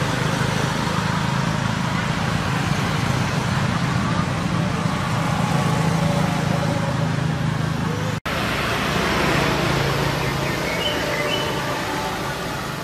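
A motor vehicle engine running steadily, with road traffic noise around it. The sound drops out for an instant about eight seconds in.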